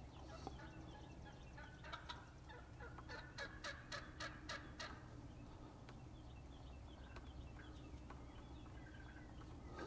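Wild turkey gobbling: a rapid rattling run of about six notes in a second and a half, a few seconds in.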